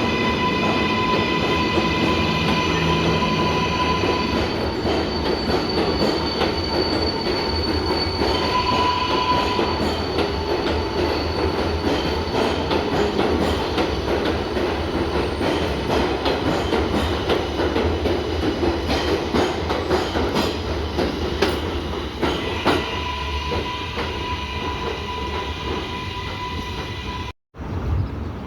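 R188 subway train running on the rails: a steady rumble with rail clicks and high whining tones that come and go. The sound briefly cuts out near the end.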